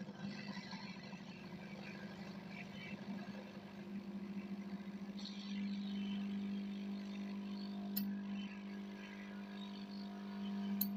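Hot air rework station's blower running with a steady hum while the sound IC is heated off the circuit board; it gets louder about halfway through. Two short sharp clicks come near the end.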